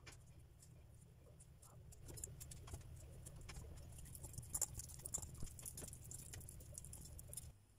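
Hands peeling boiled potatoes and squashing them in a steel bowl: soft, irregular wet crackles and clicks, busier from about two seconds in, over a low steady hum.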